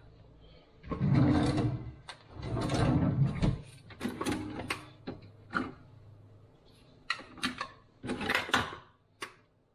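Clicks, rubs and clunks of a single-serve pod coffee brewer being handled: a mug scraped into place under the spout, then the brewer's lid worked open and shut with a louder clatter a little past eight seconds.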